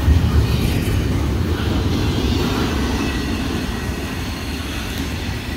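Double-stack container well cars of a freight train rolling past and going away, the rumble of wheels on rail fading steadily.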